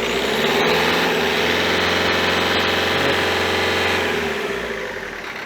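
Renault Mégane II diesel engine revved and held at higher speed for about four seconds, then dropping back to idle near the end.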